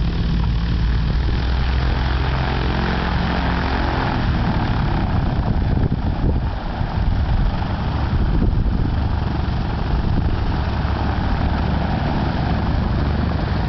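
Single-engine propeller tow plane's piston engine running at low power on the grass, a steady low drone whose pitch shifts slightly in the first few seconds, then holds steady.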